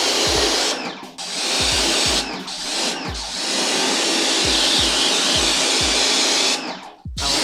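A jet of water sprayed into an air-conditioner's coil fins: a loud, steady hiss that stops and restarts briefly about one, three and seven seconds in. A regular low music beat thumps underneath.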